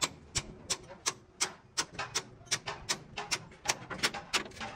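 Rapid, irregular sharp taps or knocks, about three or four a second.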